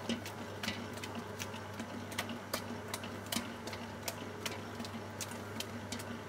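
Spiral dough mixer kneading brioche dough: a steady motor hum with a light tick about twice a second.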